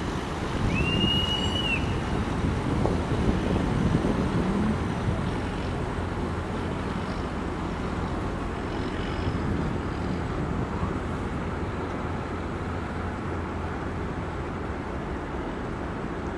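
Steady low rumble of a passing river passenger express boat's engine and wash with wind on the microphone, a little louder in the first few seconds as the boat goes by. A short high whistle sounds about a second in.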